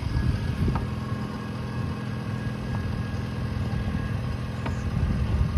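A Daihatsu Copen's small turbocharged four-cylinder engine, idling steadily.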